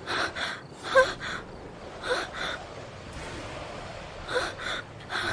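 A woman gasping and panting in distress: short, sharp breaths mostly in pairs, some breaking into brief whimpering cries.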